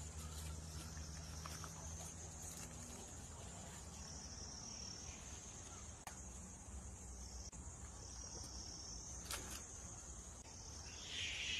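Insects shrilling steadily in a high, slightly wavering drone, with a few faint clicks.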